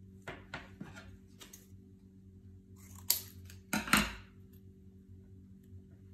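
Painting tools handled on the work surface: a few short scrapes and rustles, then louder knocks and clinks about three to four seconds in, over a steady low hum.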